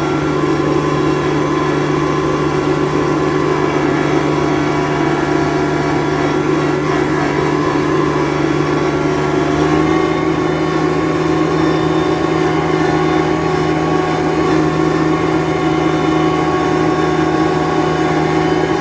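Yanmar 424 compact tractor's diesel engine running steadily, its note stepping up slightly about halfway through.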